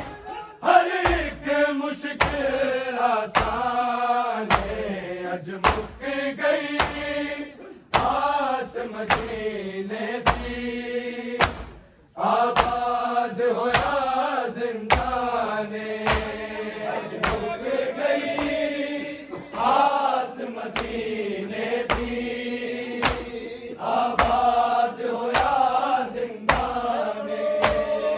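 Punjabi noha chanted by a group of men, with a steady rhythm of sharp slaps from chest-beating (matam) in time with the chant.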